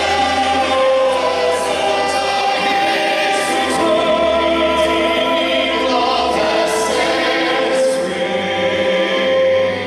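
Children's choir singing a Christmas carol over instrumental backing, with long held notes.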